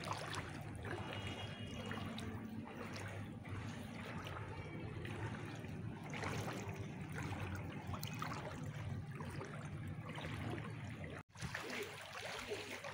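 Floodwater sloshing and trickling as someone wades through knee-deep water in a flooded street. The sound drops out for a moment about eleven seconds in.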